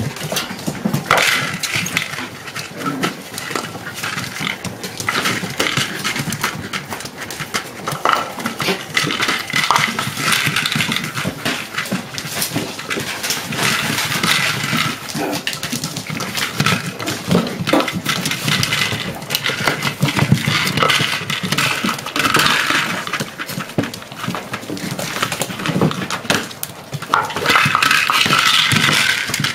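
A litter of puppies playing: small growls and yaps over the clicking and scrabbling of claws and toys on a parquet floor, busiest near the end.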